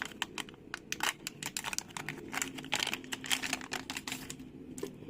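Rapid, irregular clicking and rattling of small hard parts being handled, as the new fuel pump, its connector and filter are set up for testing; the clicking thins out near the end.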